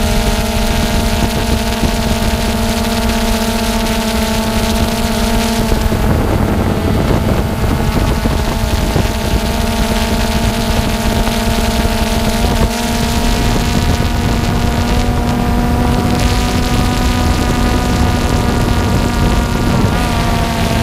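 Quadcopter drone's motors and propellers buzzing steadily, picked up by the GoPro mounted on it, with wind rushing over the microphone. The pitch wavers briefly about twelve seconds in and again near the end as the drone adjusts its hover.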